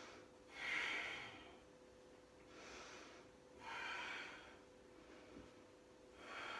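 A woman breathing deeply and audibly, four breaths spaced a second or two apart, the first, third and last the strongest: effortful belly breathing while holding the legs up in a demanding core exercise.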